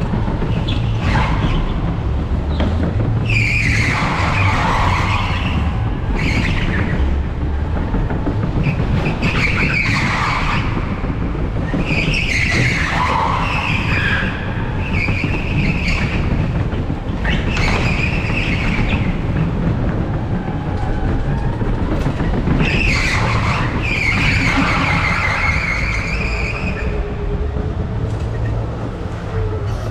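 Electric go-kart running fast on tarmac, with a steady low rumble of wind and road noise on the onboard microphone. The tyres squeal in bursts of a second or more through the corners, about five times. Near the end comes a low falling whine as the kart slows.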